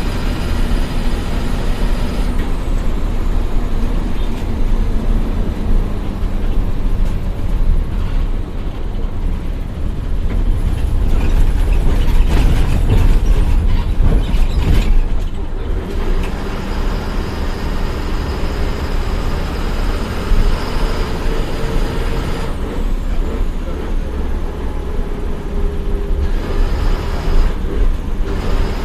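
Bus engine and road noise heard from inside a moving KSRTC bus: a steady low rumble that grows louder around the middle, then settles back.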